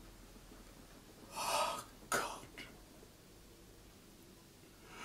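A man coughing: a longer cough about a second and a half in, then a short, sharp one just after two seconds.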